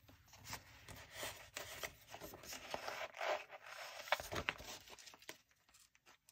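Faint scraping and rustling of paper as a sticker's overhang is trimmed along the edge of a planner page and the page is handled and moved, with two sharper ticks around four seconds in.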